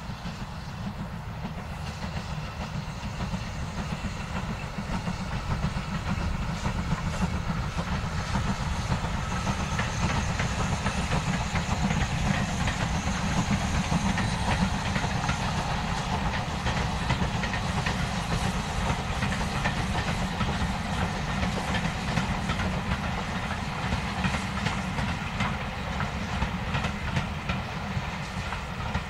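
Steam locomotive with an LMS tender hauling a train of coaches past, its rumble and steam hiss building to a peak about halfway through. The coaches follow with wheels clacking over the rail joints.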